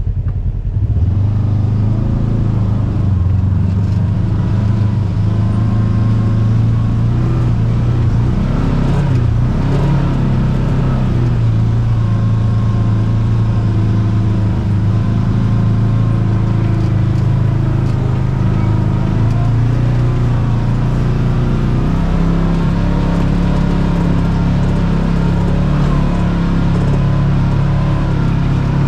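Kawasaki KRX 1000 side-by-side's parallel-twin engine running at trail speed, its note dipping and rising a little with the throttle about ten seconds in and stepping up slightly about two-thirds of the way through.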